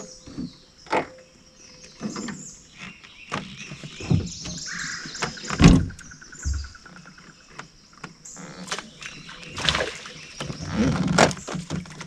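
Irregular knocks and bumps in a small fishing boat as an angler shifts and handles his rod and gear, the loudest a heavy thump about halfway through. Bird calls and a steady high drone sit behind.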